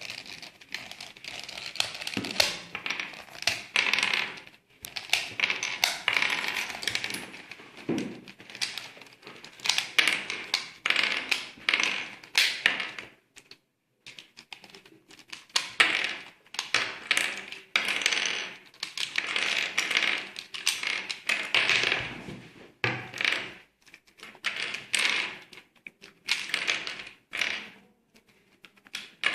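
Plastic pieces of a 3×3 Rubik's cube being pried out one by one and set down on a hard surface: quick runs of sharp clicks and clatter, with a couple of brief pauses.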